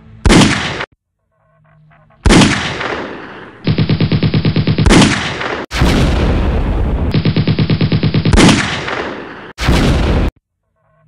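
Gunfire sound effects: short single shots and heavy blasts with a fading tail, between long bursts of rapid machine-gun fire. Each piece starts and cuts off abruptly, with brief silent gaps between them.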